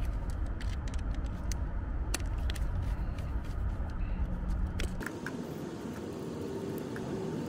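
A steady low rumble, like an engine running, stops suddenly about five seconds in. Light metallic clicks and taps come throughout as a screwdriver works the terminal screws of a new HVAC contactor.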